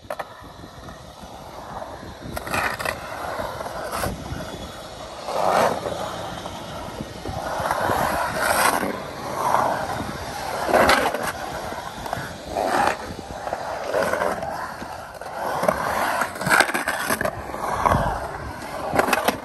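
Skateboard wheels rolling on the concrete of a pool bowl, the rolling swelling and fading every second or two as the rider carves up and down the walls, with a few sharp clacks from the board.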